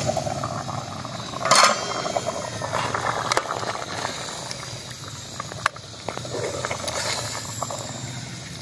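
A pot of beef korma simmering while a steel ladle stirs it. There is a clatter about a second and a half in, then a few sharp clinks of the ladle against the pot.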